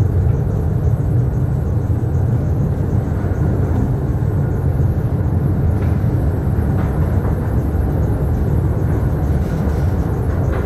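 Small Mail Rail ride train running through a narrow underground tunnel: a steady low rumble, with a few faint clicks from the track.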